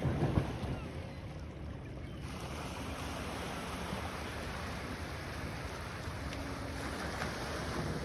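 Small Lake Ontario waves washing steadily onto a pebble beach, with wind buffeting the microphone.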